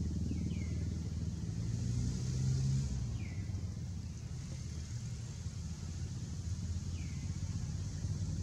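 A motor vehicle's engine running steadily as a low rumble, swelling briefly a few seconds in. A few short, high falling chirps sound over it.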